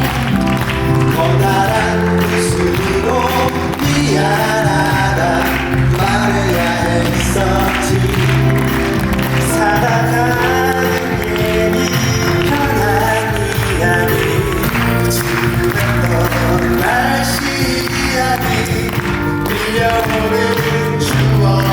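Live band playing the instrumental introduction to a soft Korean pop ballad, with sustained chords, a bass line and a melody over them.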